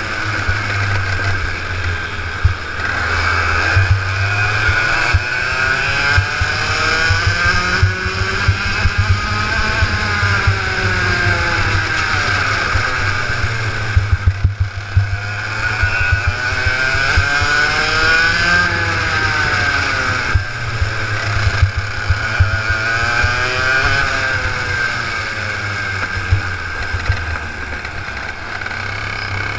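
Two-stroke racing kart engine heard from an onboard camera, rising in pitch as it revs up along the straights and dropping off into the corners, over and over.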